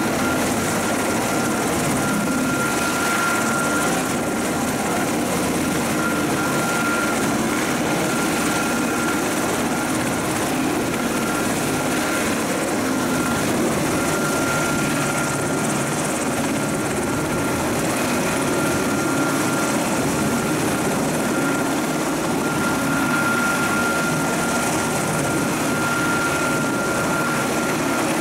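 U.S. Coast Guard MH-60T Jayhawk helicopter running on the ground with its rotors turning: a steady rotor and turbine noise, with a thin high whine that fades in and out.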